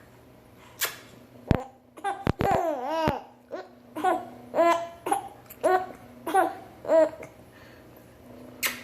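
Baby giggling in short, high-pitched bursts, a few at first, then a quick run of about six laughs in a row.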